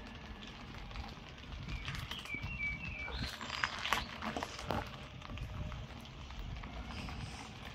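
Bicycle being ridden at about 15 km/h on a rough paved path: a steady low rumble of tyres and wind with irregular knocks and rattles from the bike over bumps.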